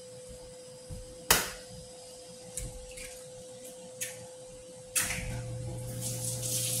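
Covered stainless-steel skillet cooking on an induction cooktop: a thin steady whine, a few sharp metallic clicks with the loudest about a second in, then a steady low hum with a faint hiss from about five seconds in.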